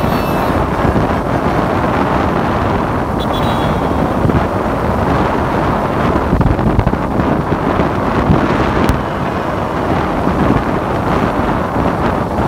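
A steady stream of cars and pickup trucks driving past on a wet road: a continuous rush of engines and tyres on wet pavement, with wind rumbling on the microphone.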